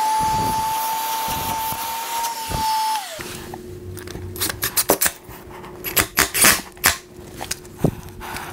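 Vacuum cleaner running, drawing dust out of freshly drilled holes in a concrete floor, then shutting off about three seconds in with a falling whine. After that come a faint hum and scattered clicks and knocks as a cordless drill drives the sensor's mounting screws into the floor.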